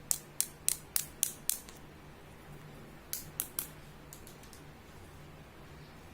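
A run of sharp small clicks, about six in quick even succession, then three more a little later and a few fainter ones after.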